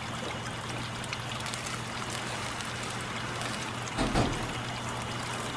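Steady hiss like trickling water with a faint low hum underneath. About four seconds in there is one dull thump as the toy boat is brought into the sandbox set.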